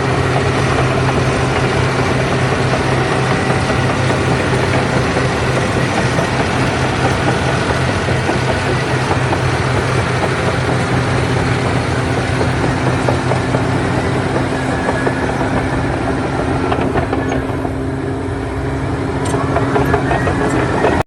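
A loud motor vehicle engine running steadily at close range. About three-quarters through it eases off, then rises again near the end.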